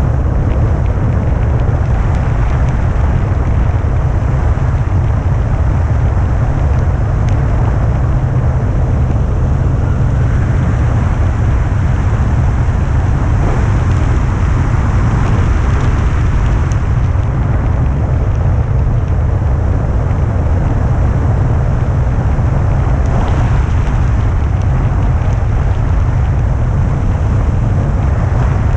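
Wind rushing over the microphone of a camera mounted on a rigid-wing hang glider in flight: a steady, loud, low rumble of airflow that does not let up.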